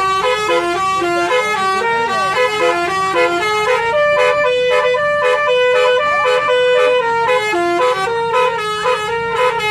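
Basuri telolet multi-tone musical horn playing a fast melody, its notes changing several times a second, with some longer held notes in the middle.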